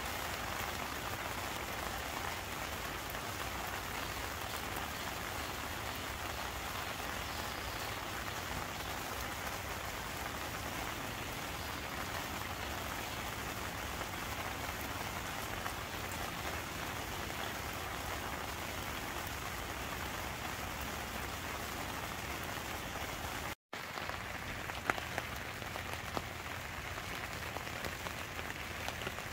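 Steady rain falling on a heavy-duty waterproof tarp overhead, with water running and dripping off its edge. The sound cuts out for a moment near the end.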